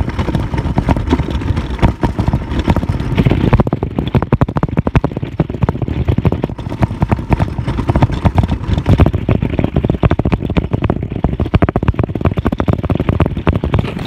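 Cloth rubbing and scraping right against the phone's microphone: a loud, dense, crackly rustle with a heavy low rumble, turning duller about four seconds in.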